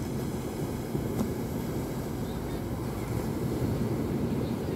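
Surf washing onto the beach with sea wind rumbling on the microphone: a steady low rushing noise.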